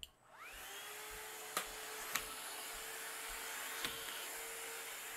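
Vacuum cleaner switched on with a click, its motor spinning up with a rising whine over about a second, then running steadily as it picks up spilled cat litter, with three sharp ticks of litter granules knocking through the nozzle.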